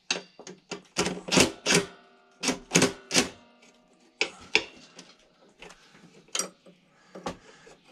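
Tools clinking on metal: a cordless drill's socket and a spanner knocking against rusted axle nuts on a steel mower deck, a series of irregular sharp clicks and taps.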